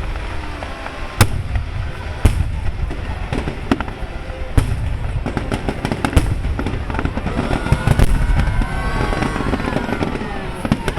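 Aerial fireworks finale: shells bursting with sharp bangs every second or so over a dense, continuous low rumble of overlapping explosions.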